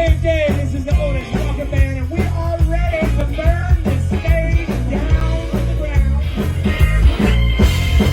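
A live band playing an up-tempo rock number: a steady drum and bass beat under a lead line that bends in pitch, with a held high note coming in near the end.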